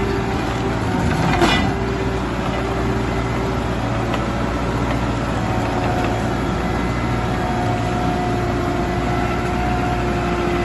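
Industrial stump grinder running steadily: an engine drone with a held whine, and a brief louder grinding scrape about a second and a half in.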